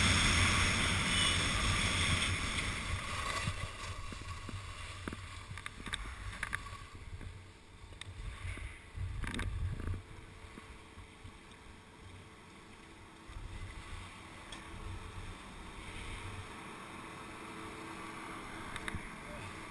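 Wind buffeting a helmet-mounted action camera and skis hissing over groomed snow while skiing, fading over the first few seconds as the skier slows to a stop. After that come quieter, scattered clicks and knocks of skis and poles while shuffling through a chairlift line.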